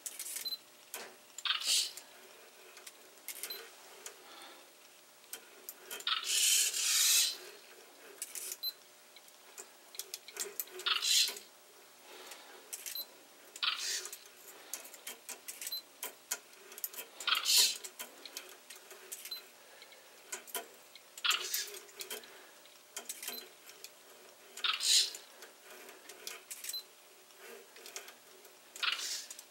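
Kite aerial photography rig's camera shutter clicks and short whirs of its hobby servos, repeating irregularly every one to three seconds, with one longer whir about six seconds in. The rig fires the shutter as it swings through level while stepping around to capture a photo mosaic.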